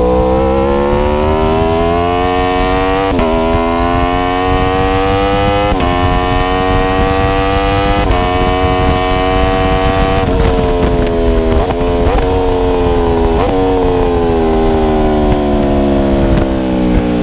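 Aprilia RSV4 1100 Factory's V4 engine pulling hard through three upshifts, its pitch climbing and snapping down at each gear change. About ten seconds in it closes off, with a few quick blips on the downshifts as the pitch falls.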